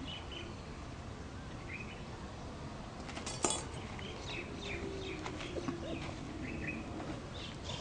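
Quiet outdoor background with a few faint bird chirps. A short clink about three and a half seconds in, as the metal snake stick is set down on the stony ground.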